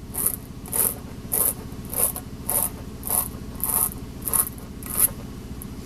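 Spiral tire-repair reamer being twisted back out of the nail hole in a tire, rasping against the rubber in about nine short, even strokes, roughly one every 0.6 seconds.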